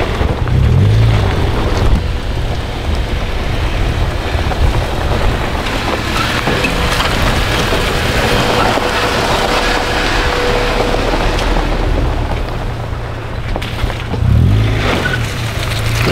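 Car driving on a rough dirt forest road: steady road and engine rumble, with heavier low surges near the start and again near the end.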